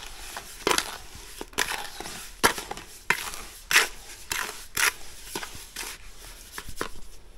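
Premixed brickies mortar being stirred and scraped in a plastic bucket with a trowel: a string of irregular, gritty scrapes, one about every half second to second.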